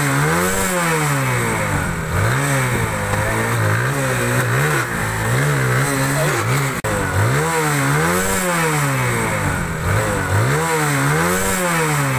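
TVS Apache RTR motorcycle's single-cylinder engine being revved over and over in short throttle blips, its pitch climbing and falling back about once a second.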